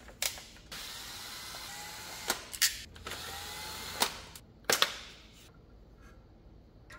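Cordless drill/driver running steadily for a few seconds as it backs out the bolts of an automatic transmission oil pan, with several sharp metallic clicks along the way. It stops about four and a half seconds in, and only faint handling sounds follow.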